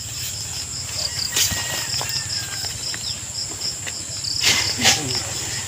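Crickets chirping in an even, rapid pulse over a steady high insect drone. A few sharp knocks and scrapes from a long digging bar worked into the soil of the hole, the loudest about four and a half to five seconds in.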